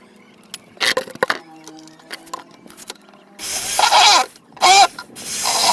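Homemade coconut grater driven by a washing-machine motor grating coconut in loud rasping bursts, starting a little past halfway, with a few clicks about a second in.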